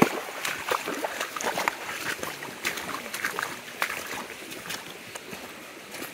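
Shallow, clear stream running and babbling over stones, with scattered footsteps on the rocky bank.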